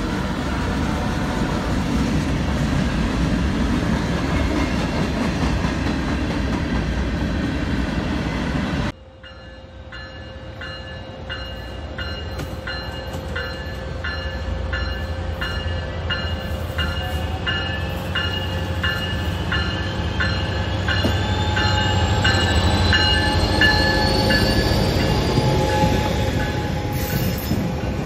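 A long freight train of tank cars and boxcars rolls past with a steady rumble of wheels on rail. After an abrupt cut, a MARC commuter train comes through, its locomotive and passenger cars rolling by with a clickety-clack. A bell rings about twice a second and a rising whine is heard near the middle.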